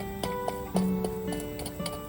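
Background music: a gentle plucked-string tune, a new note coming in about every half second.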